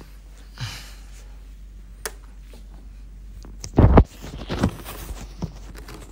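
Handling noise from a phone being moved and set down: a soft rub, a sharp click, then a heavy thump about four seconds in, followed by rustling.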